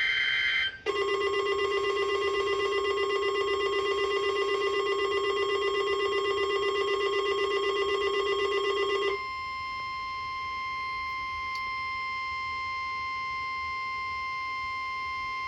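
Emergency Alert System alert tones ahead of a special marine warning. A brief electronic data-burst screech comes first. Then a loud buzzing alarm tone pulses rapidly for about eight seconds and switches suddenly to one steady, pure attention tone held for about six seconds.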